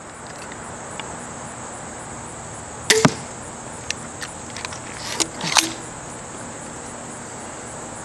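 An 80 lb pistol crossbow firing a bolt about three seconds in: a sharp snap of the string, with the bolt striking the target a split second later. A couple of seconds later come smaller clicks and rattles as the crossbow is handled and reloaded.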